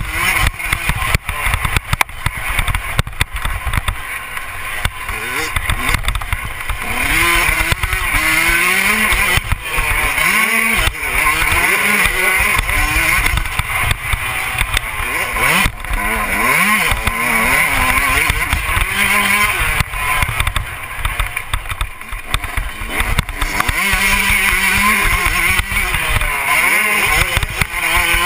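Dirt bike engine on a motocross track, heard from on the bike, revving up and easing off over and over as it is ridden through the bumps and gears. Wind rush and jolts from the rough ground run through it.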